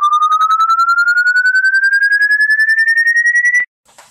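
Electronic tone rising slowly and steadily in pitch, pulsing rapidly. It cuts off abruptly about three and a half seconds in, leaving a few faint clicks.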